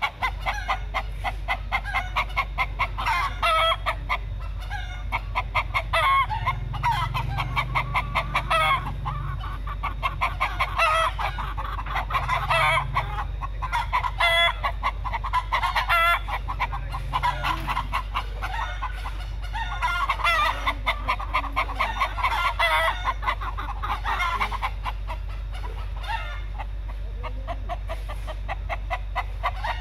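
Domestic chickens, a rooster among hens, clucking rapidly and without pause, in louder and softer spells; the uploader takes these calls for courting. A steady low hum lies underneath.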